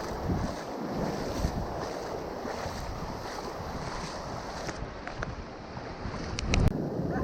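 Wind buffeting the microphone over the wash of surf on the beach, a steady rumbling noise. A few sharp clicks and a single knock come near the end.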